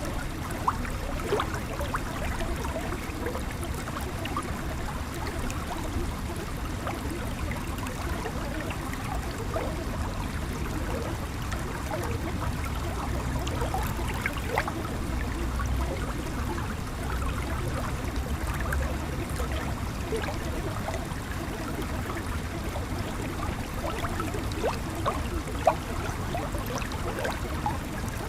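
Steady flowing stream, water trickling and gurgling with many small splashes.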